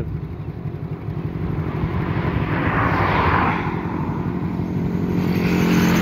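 Motorcycle hauling an overloaded cargo cart, its engine running steadily, growing louder near the end as it pulls away under the load. A rush of noise swells and fades around the middle.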